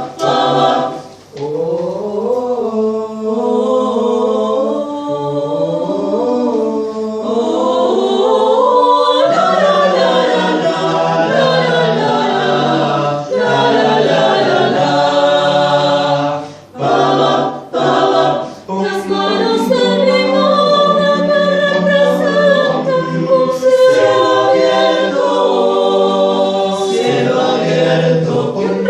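Chamber choir singing a cappella in several parts, with short pauses between phrases about a second in and again twice in the middle.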